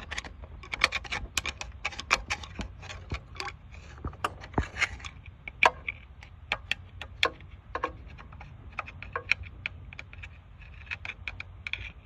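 Hand tools clicking and scraping at the thermostat housing as the old gasket area is cleaned: irregular sharp ticks and short scrapes, a few a second.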